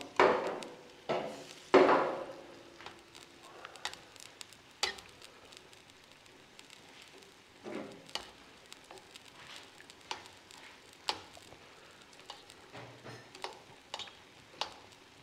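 Stir-frying noodles, squid and flathead in a pan on a small butane stove: food sizzling while a utensil knocks and scrapes in the pan, three loud knocks in the first two seconds, then lighter taps about once or twice a second.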